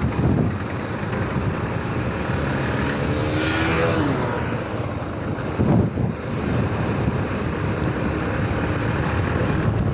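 Riding on a Bajaj Pulsar NS200 motorcycle: its single-cylinder engine running under steady wind rush on the microphone, with a rising engine pitch about three and a half seconds in as another motorcycle accelerates past close by.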